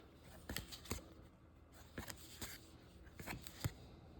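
Baseball trading cards handled and flipped through one by one: faint, irregular flicks and slides of card stock, a few a second.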